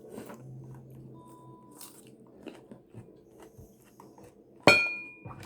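Person eating with chopsticks: chewing and crunching food with small clicks. Near the end comes a single loud, sharp clink that rings briefly.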